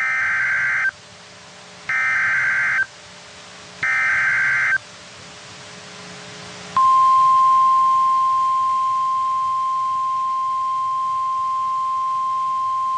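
NOAA Weather Radio Emergency Alert System sequence: three one-second bursts of SAME digital header data, about a second apart. About seven seconds in, the steady 1050 Hz weather-radio warning alarm tone starts and holds. This sequence announces a warning, here a severe thunderstorm warning.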